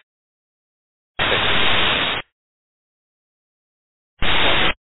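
Air-traffic-control radio static, with no voice in it. There are two bursts of hiss as the receiver's squelch opens: one about a second long, then a shorter one near the end, with dead silence between them.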